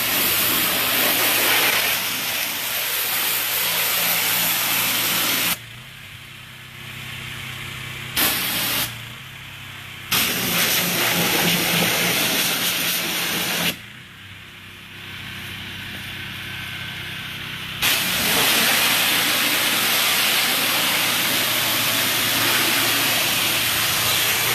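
Pressure washer spraying water in stretches, its high hiss cutting off suddenly and starting again several times as the trigger is released and squeezed, including one short burst, while the machine's engine keeps running steadily underneath.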